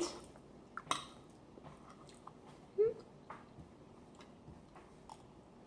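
Soft mouth sounds of someone chewing food, with scattered faint clicks and one brief short vocal sound about three seconds in.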